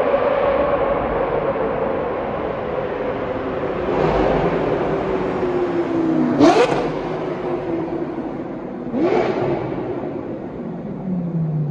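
Lamborghini Gallardo Superleggera V10 through an aftermarket straight-through exhaust: the engine note slowly falls in pitch, then two sharp throttle blips about two and a half seconds apart, each rising quickly and dying away.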